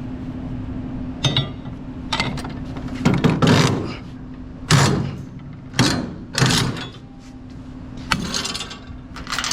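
Steel load chains and a chain binder being worked to secure cargo on a flatbed: several loud metallic clanks and rattles, over a steady low hum.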